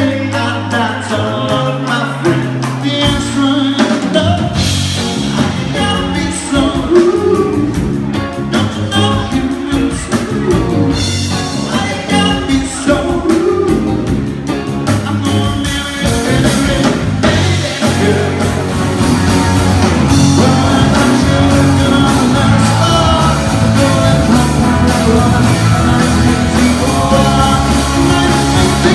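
Live covers band playing an upbeat rock-pop song: a male lead singer over electric guitar, bass guitar and a drum kit.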